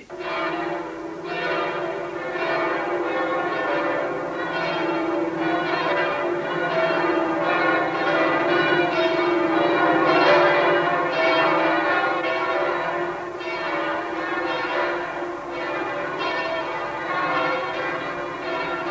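Church bells pealing, with overlapping strikes about twice a second and each ringing on into the next.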